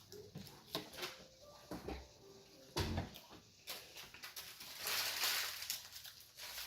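Close-up eating sounds: chewing with wet mouth clicks and snaps, and a louder rustling swell about five seconds in.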